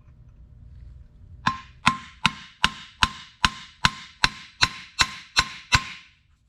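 A hammer striking steel about a dozen times in an even rhythm, roughly three blows a second, each with a short metallic ring, starting about a second and a half in. It is tapping a steel hookup bracket back to dead centre.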